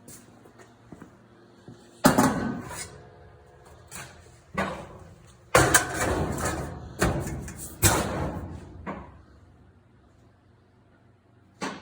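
A formed sheet-steel drive shaft tunnel clanging as it is handled and set into place. There are several sharp metallic knocks, each with a ringing after it: the loudest is about two seconds in, a run follows from about five and a half to eight seconds, and a short knock comes near the end.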